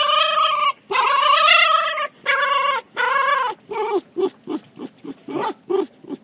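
A red fox, lying on its back while being rubbed, gives four long, high whining cries of about a second each. About three and a half seconds in, these give way to quick short yips, about three a second.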